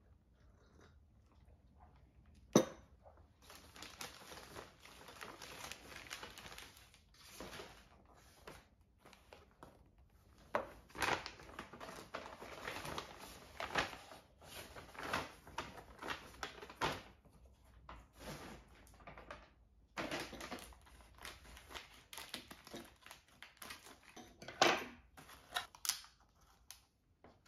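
Plastic and paper shopping bags rustling and crinkling as they are handled and unpacked, in long stretches with many short crackles. A sharp knock about two and a half seconds in, and another near the end.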